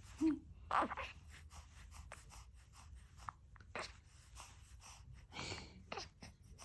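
A baby's small breathy sounds and brief vocal noises, among soft rustling and handling clicks.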